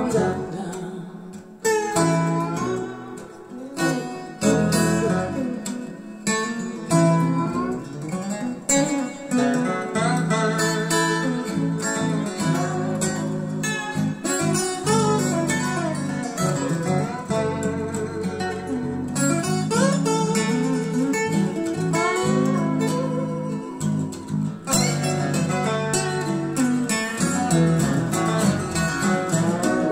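Instrumental acoustic guitar passage of a song, with plucked and gliding notes over a steady bass line, played back through a pair of small Dantax New Magic bookshelf speakers and heard in the room.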